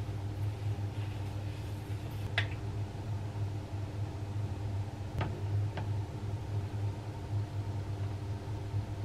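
A steady low mechanical hum, with a few faint ticks in the middle.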